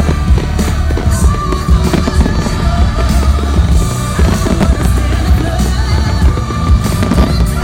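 Loud music with a heavy bass, with fireworks bangs and crackles over it.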